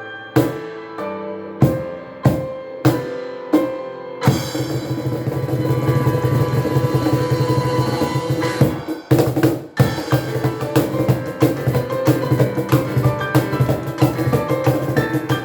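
Live piano with hand percussion: spaced chords struck about twice a second, then around four seconds in a bright, sustained shimmer joins and the playing turns dense and continuous, with percussion hits running on.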